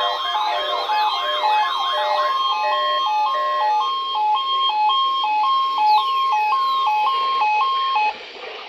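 Several electronic sirens sounding together: overlapping fast up-and-down yelps, then a two-tone hi-lo alternating more than once a second, with a long falling glide about six seconds in. They cut off suddenly near the end.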